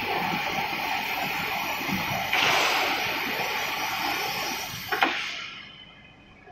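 Large fabric laser cutting machine running with a steady rushing noise, louder from about two seconds in. A click near five seconds, then the noise dies away.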